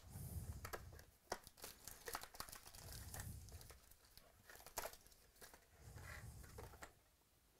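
A cardboard box of trading cards being opened by hand and its foil card packs handled: faint crinkling and rustling of the wrappers, with sharp clicks and snaps of cardboard scattered throughout.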